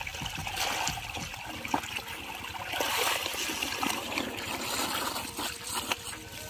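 Irrigation water running and trickling steadily, with many small splashes.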